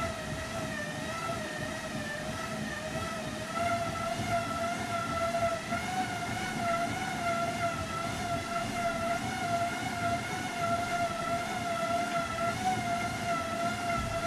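Road bike tyres spinning on cycling rollers: a steady high whine with overtones. It steps up in pitch at the very start, wavers slightly and gets louder a few seconds in.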